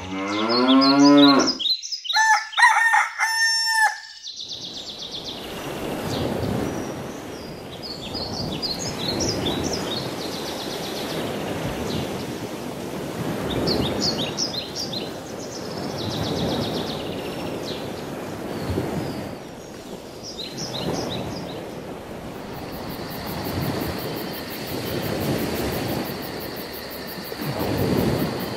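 A white cow moos, one long call rising in pitch. About two seconds in, a louder, higher call broken into several parts follows, like a rooster crowing. After that there is a steady rushing noise that swells every couple of seconds, with small bird chirps over it.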